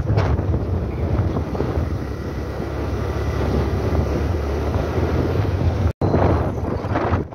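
Wind buffeting the microphone of a moving motorcycle, with the bike's engine running underneath, steady and loud. The sound cuts out for an instant about six seconds in, then carries on.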